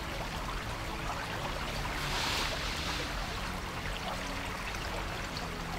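Shallow river water flowing and trickling steadily, with a brief louder swish of water about two seconds in.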